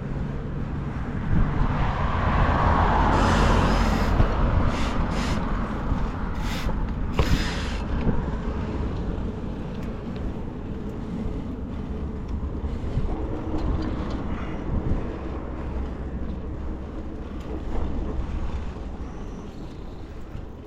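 Wind rumbling on the microphone and road noise while riding a bicycle along a street. There is a louder swell of noise about two to four seconds in and a few short bursts of hiss a little later.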